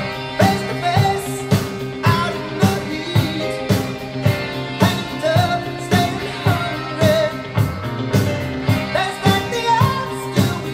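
A pop song with singing and a steady drum beat, played back through a pair of Polk Audio RTi A3 bookshelf speakers in a listening test.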